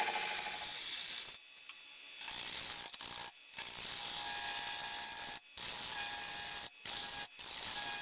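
A turning tool cutting the inside of a spinning wooden bowl on a wood lathe: a rough, steady scraping noise with a faint whine from the lathe, broken by several brief, sudden dropouts.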